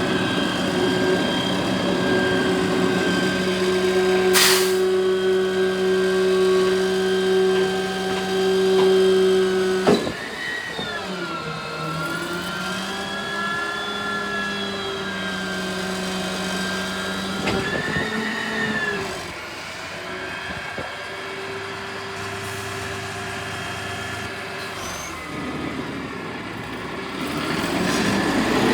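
Garbage truck engine running at raised, steady revs, then dropping suddenly with a sharp knock about a third of the way in. The revs then dip and rise, surge once more past the middle and settle lower, with a short click early on.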